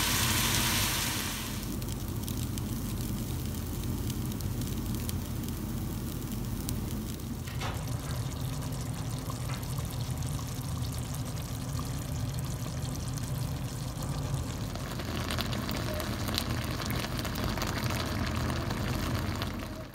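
Rice frying in ghee in a cooking pot, sizzling loudly for about the first second and a half, then a quieter, steady sizzling and bubbling of food cooking on the stove that stops suddenly near the end.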